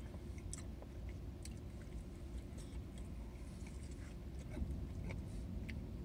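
Two people eating soft-serve Blizzards with plastic spoons: scattered small clicks of spoons against paper cups, and mouth and chewing sounds, over a steady low rumble.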